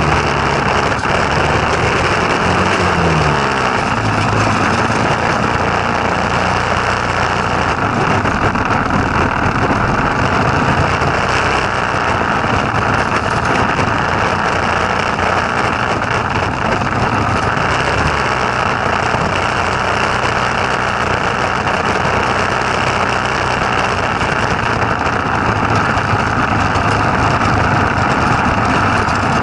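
Go-kart's Tecumseh small engine running steadily, its pitch wavering up and down in the first few seconds.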